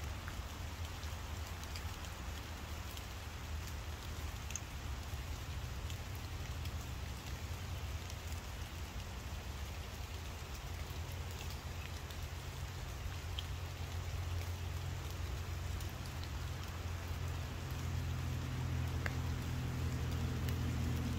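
Steady rain falling, with scattered ticks of drops hitting close by. A low steady hum grows in over the last few seconds.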